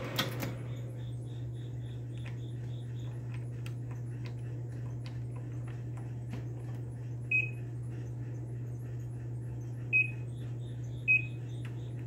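Vintage Sharp Carousel microwave's keypad beeping three times as buttons are pressed: short high beeps, one about seven seconds in and two close together near the end, over a steady low hum.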